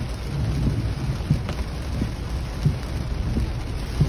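Heavy rain on a moving pickup truck, heard from inside the cab: a steady rush of rain and low rumble from the tyres on the wet road, with a soft thump about every two-thirds of a second from the windshield wipers sweeping.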